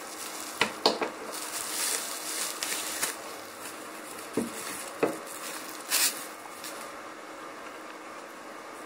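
Handling noise as a plastic hair clipper is unpacked: a bubble-wrap bag crackling and rustling, with a few light clicks and knocks of the clipper being picked up and handled. The clipper is not running.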